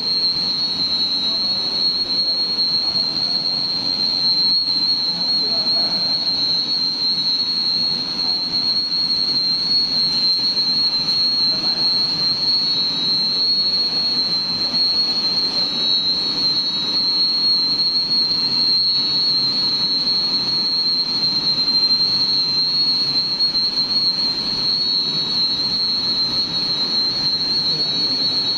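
Hot air laminating machine running steadily while bonding EPE foam sheet onto woven bag fabric: an even mechanical rushing with a constant high-pitched whine over it.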